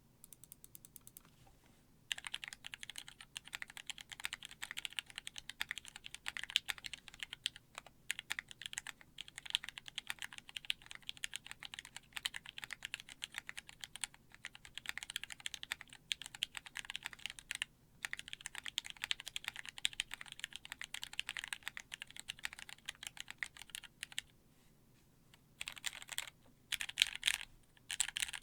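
Typing on a custom mechanical keyboard with Gateron Ink Black linear switches, a brass plate and GMK doubleshot ABS keycaps, in a case lined with a brass weight: a fast, steady stream of key clacks. The clacking stops about 24 seconds in, then comes back in short bursts.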